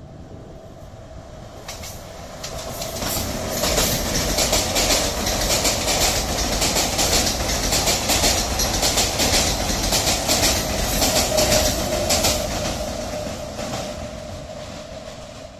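Passenger train coaches rolling past at close range over a steel girder bridge, wheels clattering over the rail joints in a quick stream of clicks. The sound builds about three seconds in, stays loud through the middle, and fades near the end.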